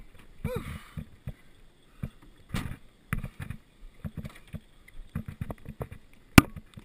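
Irregular knocks, clunks and rattles of a bicycle and a kayak being shifted into a vehicle's cargo area, with one sharp click near the end that is the loudest sound.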